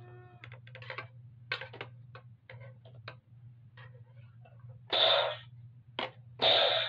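A string of light plastic clicks and taps as a toy dart sniper blaster is handled, then a short puff of noise about five seconds in.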